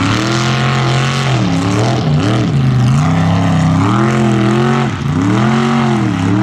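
One-ton class mud truck engine running hard at high revs, the pitch rising and falling several times as the throttle is worked, with sharp drops about two seconds and five seconds in.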